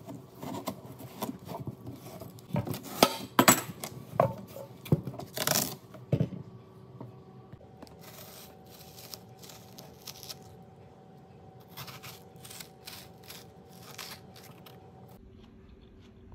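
A knife cutting into a whole watermelon: a run of sharp cracks and crunches as the rind splits, loudest about three to six seconds in. Then softer, repeated scraping strokes as a metal spoon cuts into the melon's flesh, over a faint steady hum.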